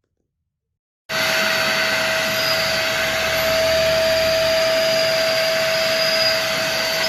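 Deerma DX115C handheld stick vacuum cleaner starting suddenly about a second in and then running steadily, its motor giving a constant whine over the rush of air.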